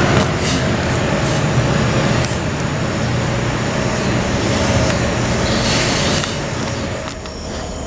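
A train rolling on steel rails: a steady rumble with scattered sharp clicks and a brief hiss, dropping off about seven seconds in.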